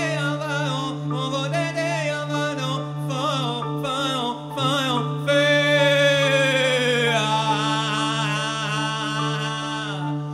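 Live band of horns, flute, bass and drums playing: wavering wind lines over a held low note, with a loud sustained horn note sliding slowly down in pitch from about halfway through.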